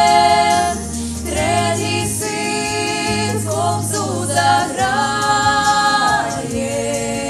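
A vocal trio of teenage girls singing a Ukrainian song in harmony. A long held note ends about a second in, and then new phrases begin.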